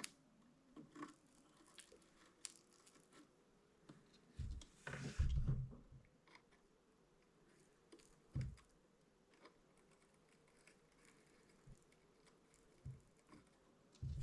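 Scattered small clicks, taps and handling noises from work with tools and cables on a bench, with a louder clatter about five seconds in and a single knock a few seconds later.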